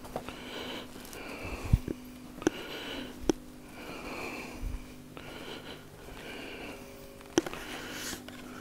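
Close breathing through the nose, a breath about every second, with a few sharp clicks and a faint steady low hum.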